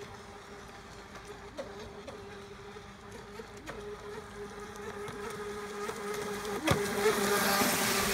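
Helion Rivos electric RC speedboat's motor whining at a steady pitch as it runs across the water. It grows louder near the end as the boat passes close, and a rushing hiss of spray comes in with it.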